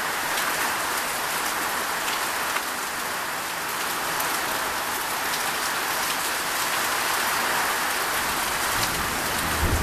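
Heavy downpour falling steadily, with individual drops ticking on nearby surfaces; a low rumble comes in near the end.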